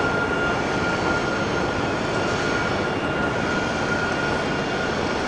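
Steady vehicle noise: a constant, even rush with a thin, high, steady whine running through it.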